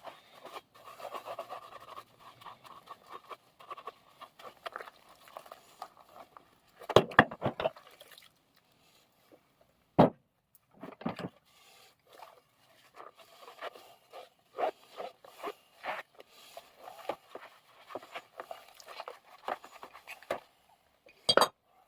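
Irregular hand scraping and rubbing on a metal vise being cleaned of grease, with a cluster of louder strokes about seven seconds in and a couple of sharp knocks a few seconds later.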